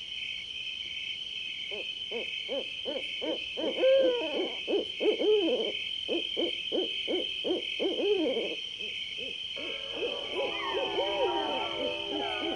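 A steady, high, pulsing chirr runs throughout. Over it comes a quick series of hooting calls from about two seconds in until past eight seconds, then more varied calls near the end.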